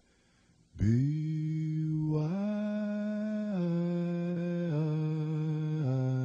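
Outro music: a slow vocal melody of long held notes stepping between pitches, entering with an upward scoop about a second in after a brief silence.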